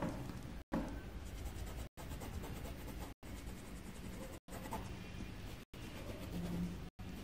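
Coloured pencil scratching on paper as a drawing is coloured in. The sound is cut by short silent gaps about every second and a quarter.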